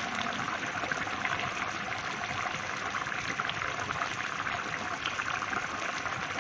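Squash and moringa-leaf broth bubbling at a steady boil in a wok, a dense patter of small pops and crackles.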